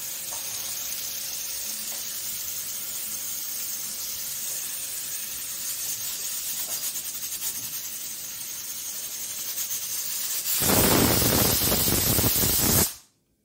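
Aluminium pressure cooker on a gas flame hissing steadily under pressure, then blowing its whistle: a loud rush of steam from the weight valve starts about ten and a half seconds in, lasts about two seconds and cuts off suddenly. This is the whistle that counts off cooking time for the vegetables.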